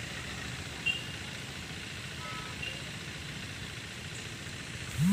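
Steady low rumble of distant traffic, with a single click about a second in and a few faint short chirps.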